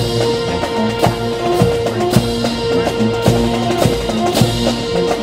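Music with a drum kit keeping a steady beat of about two hits a second over held notes.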